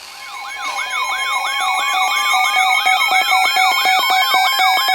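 Electronic siren-style alert tone from a broadcast, building up over the first second: a rapid wailing sweep repeating about three times a second over a pulsing steady tone, with a slowly rising tone beneath. It heralds the tornado warning that follows.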